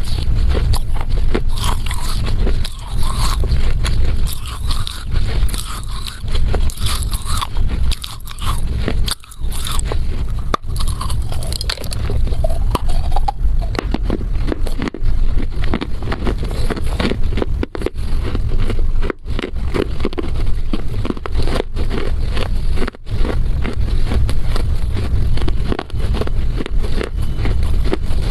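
Close-miked biting and chewing of a chunk of Chinese loess clay: dense, irregular crunching and crackling, recorded on a lavalier microphone held at the mouth, over a steady low rumble.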